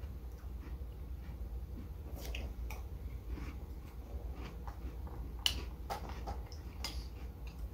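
Scattered clicks of a metal spoon against a glass bowl as cereal in milk is scooped and eaten, the loudest about five and a half seconds in.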